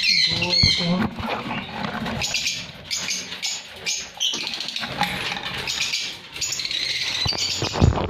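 Lovebirds chattering: a dense run of rapid, high chirps and squawks, with a few bumps from the wooden nest box being handled.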